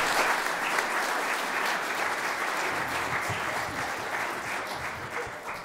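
Audience applauding, the clapping slowly thinning and dying away near the end.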